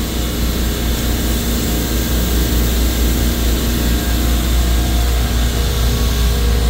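Steady, loud low drone of running refrigeration machinery, with a constant hum and a hiss over it. It is unchanging throughout.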